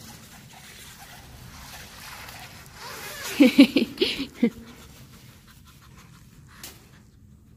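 A quick run of about six short pitched vocal sounds close to the microphone, a little past the middle, over faint background noise.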